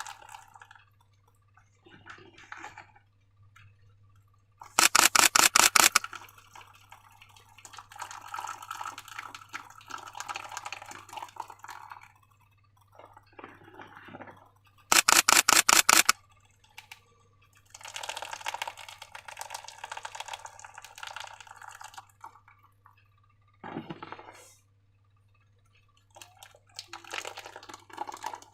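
Slime being poured and worked by hand: wet pouring, dripping and squelching in short stretches. Twice, about five and fifteen seconds in, a much louder rapid clattering rattle lasts about a second.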